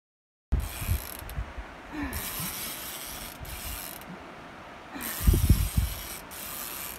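Fishing reel ratcheting in several spells while the rod is worked, starting suddenly about half a second in. Wind buffets the microphone in heavy thumps, loudest about five seconds in.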